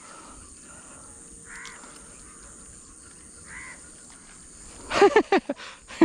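A crow cawing at a distance, three short hoarse caws about two seconds apart, over a steady high insect hiss. About five seconds in, loud voice-like sounds break in.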